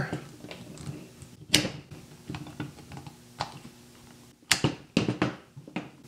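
Sheet metal snips biting through a thick four-conductor rubber-jacketed cable: one loud sharp snap about one and a half seconds in, then a quick cluster of clicks and snaps near the end.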